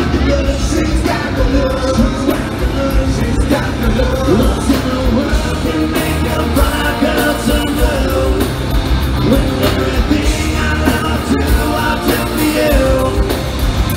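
A live rock band playing loud, with a singer over guitars and drums.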